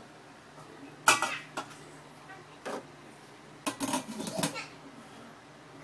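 Stainless steel steamer pot clanking sharply as it is set down onto its base pot about a second in, followed by a few lighter knocks and a glass lid clattering into place around four seconds in.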